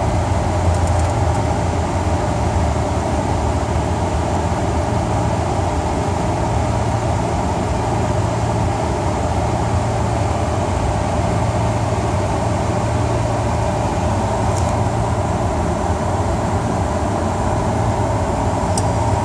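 Steady flight-deck noise of a Boeing 747-400 during takeoff: its four turbofan engines and the rushing air heard inside the cockpit as an even roar over a deep low rumble.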